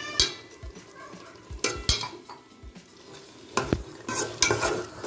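A spoon stirring and scraping through biryani masala of sautéed onion, tomato and yogurt in a cooking pot, over a sizzle, with several sharp knocks of the spoon against the pot.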